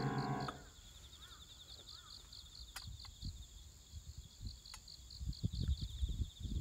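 Background music fading out, then an insect chirping steadily and faintly, about five pulses a second, with irregular low rumbles in the second half.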